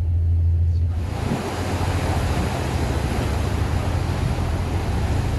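Steady rush of wind and sea water over the low drone of a moving car ferry's engines. The rush comes up about a second in.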